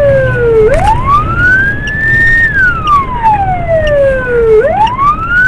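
Police car siren wailing: the tone climbs quickly to a high pitch, holds briefly, then falls slowly to a low pitch before climbing again, about once every four seconds. A low rumble runs underneath.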